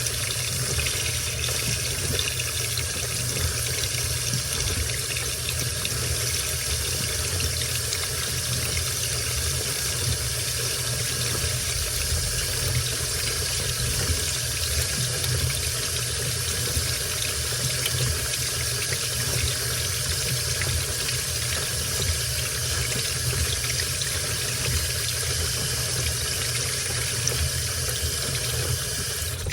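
Washing machine with a steady rush of water running into its tub.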